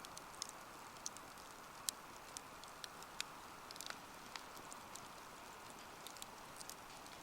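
Wood fire crackling: irregular sharp pops and snaps, a dozen or so, over a steady soft hiss.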